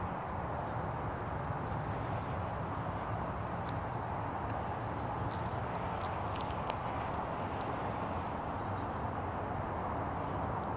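Birds chirping, many short high calls repeated throughout, over a steady background hiss of outdoor noise.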